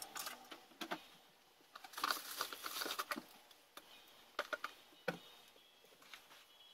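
Clothes rustling and soft knocks and footsteps as clothes are handled and packed into a suitcase, with a sharper bump about five seconds in.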